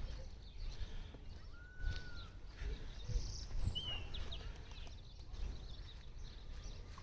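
Songbirds chirping and whistling: short high calls scattered throughout, with one longer level whistle about two seconds in. A steady low rumble runs underneath.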